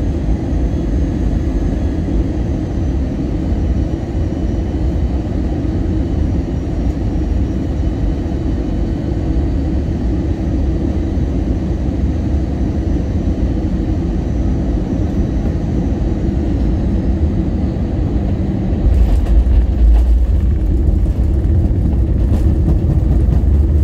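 Steady cabin noise of an Airbus airliner heard from a front-row seat: a continuous low rumble with a faint thin engine whine over it. About two-thirds of the way through, the rumble grows louder and a few sharp rattles come in.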